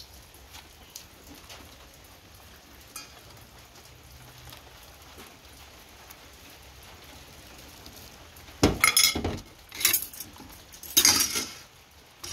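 Dishes being washed by hand: a quiet rubbing of a soapy hand over a ceramic plate, then, from about eight and a half seconds in, three loud spells of clattering and clinking as cutlery and plates are handled in a steel basin of soapy water.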